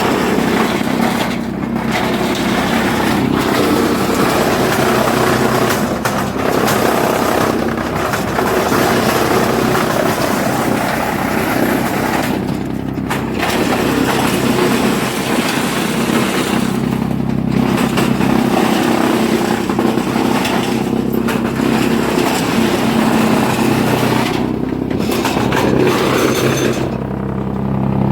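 Heavy-duty wood chipper running and chipping wood: a loud steady machine hum under a dense chipping noise that briefly drops away several times between pieces.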